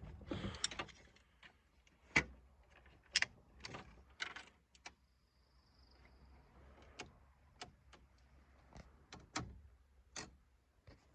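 Scattered light clicks and knocks, about a dozen spread over several seconds, over a faint low hum.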